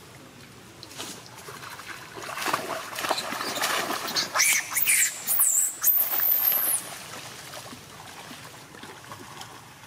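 Macaques scuffling in water: loud splashing from about two seconds in, with shrill, wavering screams in the middle of the scuffle that die away after a few seconds, leaving gentle water sounds.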